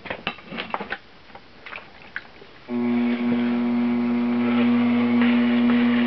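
Electric potter's wheel motor stopped at first, with a few scattered clicks and knocks, then starting abruptly about two and a half seconds in and running with a steady hum.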